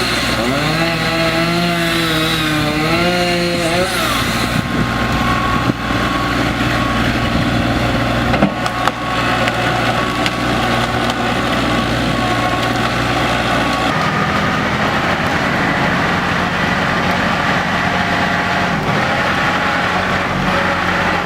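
Engine running steadily, its pitch wavering up and down for the first few seconds, with a few knocks partway through and a change in tone about fourteen seconds in.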